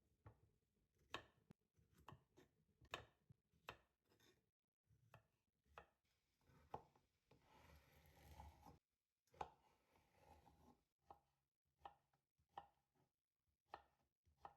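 A kitchen knife chopping food on a cutting board in unhurried, irregular single strokes, about one or two a second. A couple of seconds of softer, continuous noise come about halfway through.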